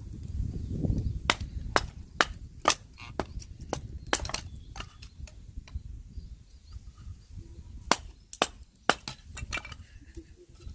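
Firewood giving a string of sharp, irregular cracks and knocks, over a low rumble.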